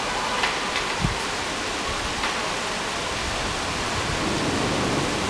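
Heavy rain pouring steadily onto a wet street and balcony, a constant hiss with a few sharp taps from close drops in the first two seconds or so.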